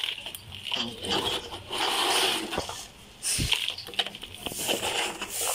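Loose potting soil being scooped from a plastic cup into a plastic plant pot and pressed down by hand: uneven bursts of rustling and scraping, with one dull knock about three and a half seconds in.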